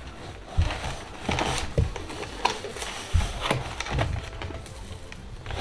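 Handling noise from a child struggling to open trading-card packaging: irregular rustles and small soft knocks, about half a dozen over the stretch, with a low rumble of things being moved on a surface.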